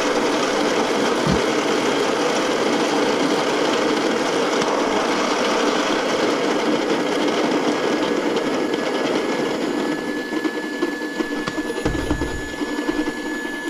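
Electric burr coffee grinder grinding a small dose of whole coffee beans at a medium-fine setting: a steady whirring grind that gets a little quieter about ten seconds in, with a low thump near the end.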